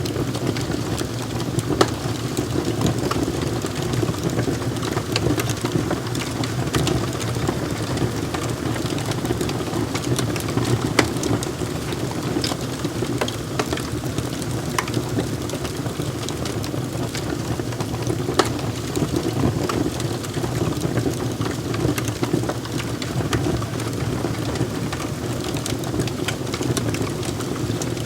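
Wood fire crackling in a fireplace: a steady low rush of burning with frequent sharp snaps and pops, a few of them louder.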